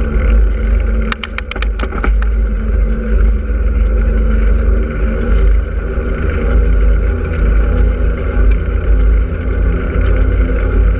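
Wind buffeting the microphone of a bicycle-mounted action camera on the move, over steady rolling road noise. About a second in comes a quick run of half a dozen sharp clicks.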